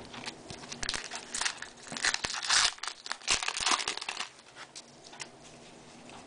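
Foil wrapper of a Topps baseball card pack crinkling as it is handled and opened, in quick irregular rustles that thin out after about four seconds.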